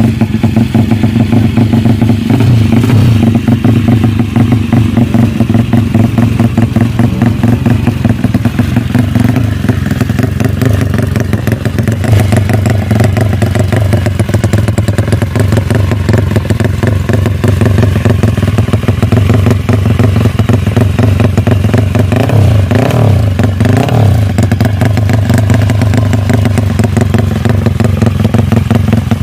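A 4-valve drag-bike motorcycle engine with a 57 mm setup running hard-edged and loud at a fast idle. There are short throttle blips, one about three seconds in and a pair about three quarters of the way through.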